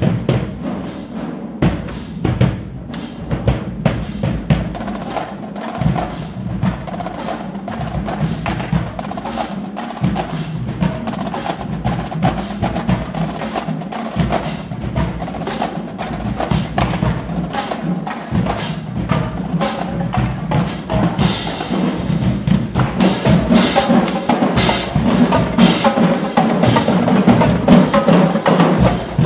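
Marching band drumline playing a fast cadence, snare drums and bass drums striking in a rapid, steady rhythm. About three-quarters of the way through it gets louder and fuller.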